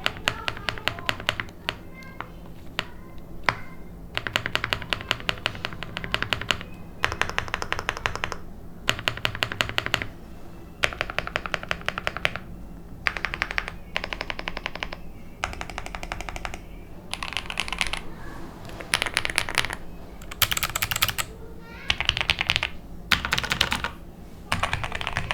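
Mechanical keyboard being typed on in quick bursts of keystrokes, each burst about a second long, with short pauses between them.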